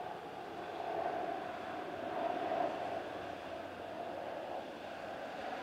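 Parked fire engine's diesel engine running at idle, a steady drone that swells slightly about two seconds in.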